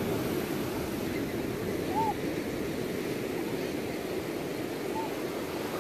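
Ocean surf breaking and washing in, a steady rush of water. Two short high cries sound over it, about two seconds in and again near the end.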